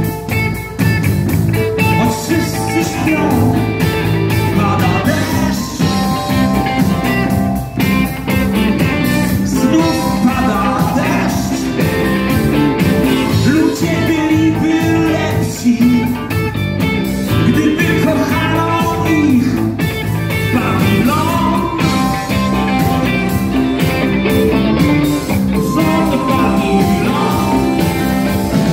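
Live rock band playing at full volume: a male voice singing over electric guitar and a steady drum beat.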